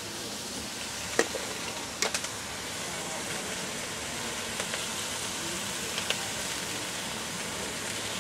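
Flowering garlic chives sizzling in a hot wok as they stir-fry, a steady hiss. A few sharp clicks cut through it, the loudest about a second in and a cluster around two seconds.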